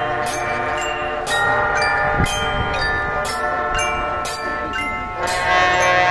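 Marching band playing: the brass section holds loud sustained chords over a steady percussion beat of about two strokes a second. The chords swell louder about a second in and again near the end.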